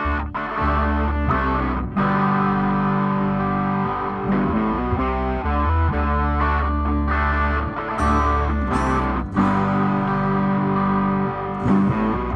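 Background music: rock with distorted electric guitar over a steady bass line.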